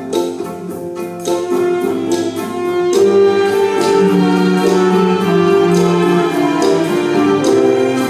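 Live orchestra of bowed strings, woodwinds and brass playing an overture over a steady beat of about two strokes a second; about three seconds in it swells louder into fuller sustained chords.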